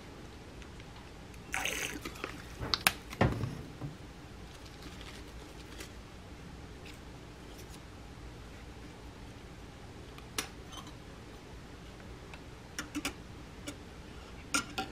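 Quiet handling sounds of making a mug of tea: a short squish as a liquid stevia squeeze bottle is used, then two sharp clicks about three seconds in. After that come scattered faint taps as a tea bag is dunked and pushed down with a metal spoon in the ceramic mug.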